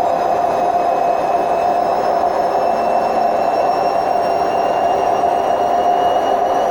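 Hotpoint WMF760 washing machine on its spin cycle, its worn drum bearings giving a loud, steady, train-like roar, with a faint whine slowly rising in pitch as the drum speeds up.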